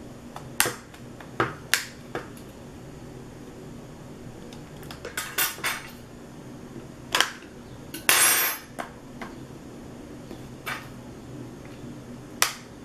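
Sharp, irregular clicks and snaps of a Google Nexus 5's plastic rear cover being pried off with a metal tool, as its edge clips pop loose. A longer crackling scrape of about half a second comes a little after the middle and is the loudest.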